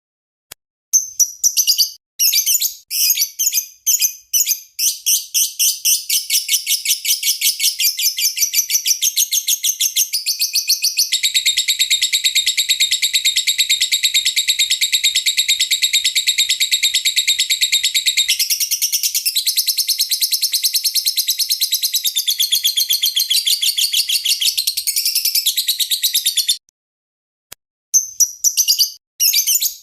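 Lovebird singing: a run of fast, shrill chirps that about eleven seconds in runs together into one long, rapid, unbroken trill lasting some fifteen seconds, then stops briefly before the chirping starts again near the end.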